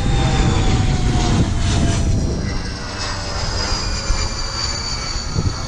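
Steady low rumble, like wind buffeting the microphone, with a faint high whine that slowly falls in pitch.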